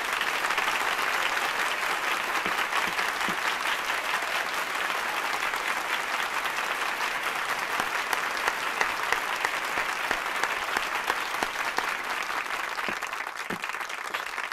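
A large audience applauding in a steady, dense mass of clapping that thins out and grows quieter near the end.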